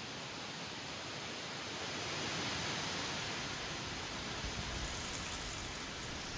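Wind blowing through autumn trees with dry leaves rustling, a steady hiss that swells in a gust about two seconds in.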